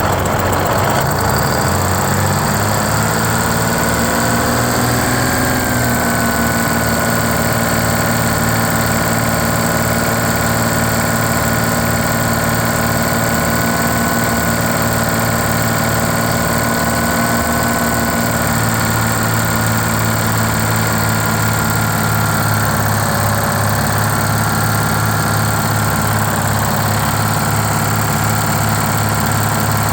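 Bus engine running: it speeds up over the first few seconds, then settles and runs steadily, with a thin high whine over it.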